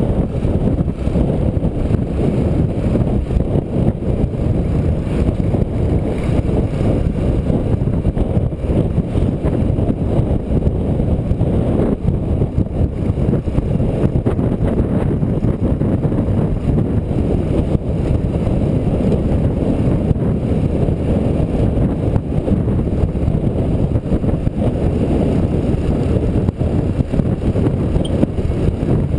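Wind buffeting the microphone of a camera on a moving motorcycle, a loud steady low rumble, with the motorcycle running underneath it.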